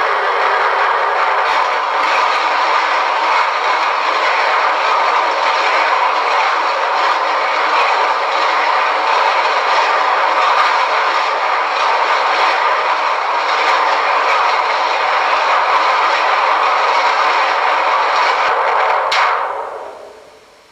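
Homemade TARDIS landing sound effect: a loud, steady noise held for about nineteen seconds with a few faint clicks in it, then dying away quickly near the end.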